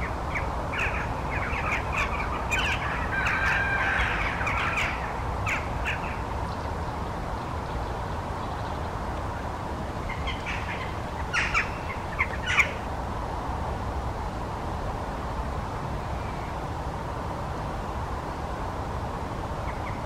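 Western jackdaws calling: a flurry of short, overlapping calls in the first few seconds, then a few sharp calls about halfway through, over steady background noise.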